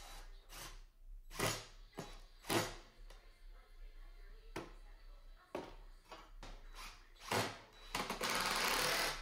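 Cordless drill driving pocket-hole screws into pine boards: several short bursts, then a longer run of about a second near the end.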